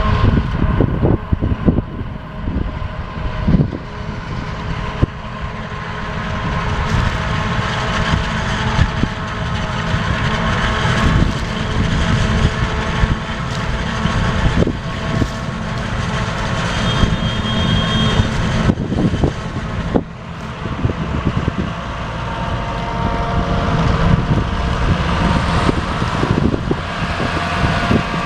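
John Deere forage harvester running and chopping corn for silage: a steady heavy rumble with a constant machine whine over it and irregular knocks throughout.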